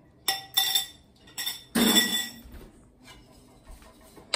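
Spoon and bowls clinking: five sharp, ringing knocks of utensil on ceramic and glass in the first two and a half seconds, the loudest about two seconds in. Quieter stirring in a glass mixing bowl follows.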